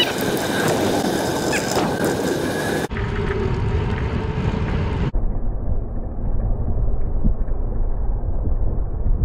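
Wind rushing over the microphone and tyre noise from a bicycle riding along a trail, a steady low rumble that shifts abruptly at cuts and turns muffled for the last few seconds.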